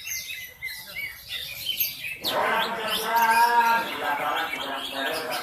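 Javan bush lark (branjangan) singing in quick, high chirps and short rising notes. About two seconds in, a louder, lower, voice-like sound starts and carries on under the song.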